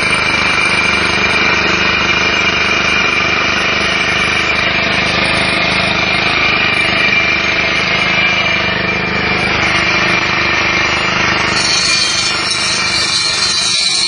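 Electric diamond core drill running steadily under load as its water-cooled core bit cuts into a concrete block, a loud continuous grinding whine. Near the end the low rumble drops away and the sound turns thinner and higher.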